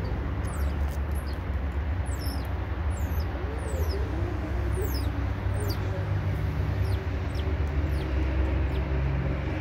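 Short, high-pitched chirps, each falling quickly in pitch, repeated about once or twice a second from small animals, over a steady low rumble.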